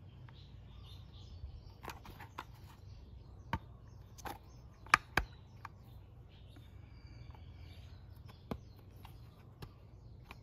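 Scattered clicks and taps from hands handling a Vespa GTS's plastic air filter box cover while fitting a small drain plug onto its spout, the loudest two close together about halfway through. Birds chirp faintly in the background.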